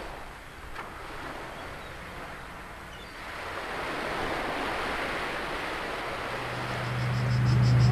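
Small lake waves lapping on a pebble shore, with wind buffeting the microphone. From about six seconds in a low steady hum swells up, leading into music.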